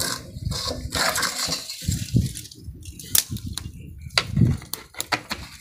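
Dry twigs crackling and snapping as they are broken and pushed into an earthen cooking hearth, with scattered sharp clicks and a few dull knocks.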